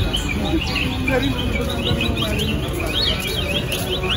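Birds chirping in a steady chatter of quick, high up-and-down chirps, with faint voices in the background.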